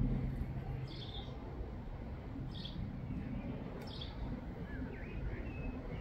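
Bird chirping in short calls about every second and a half, with a few brief sliding whistles near the end, over a steady low rumble of background noise.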